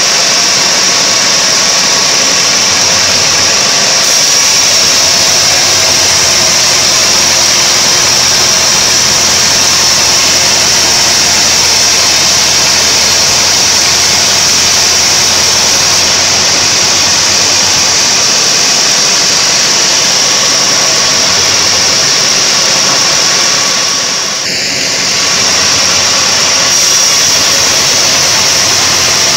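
Homemade sawmill bandsaw ripping a mahogany log lengthwise into boards. The machine runs loud and steady, a high hiss over a hum, with a short dip in level near the end.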